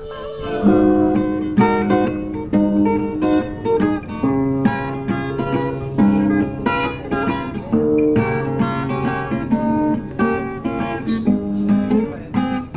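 Instrumental passage of a home-recorded song: an acoustic guitar strumming and picking chords, with no singing.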